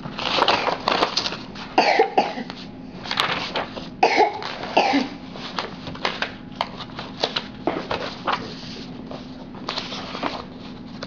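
Sheets of paper rustling and shuffling as a hand sorts through a pile of worksheets, in irregular bursts that are loudest in the first half, over a faint steady hum.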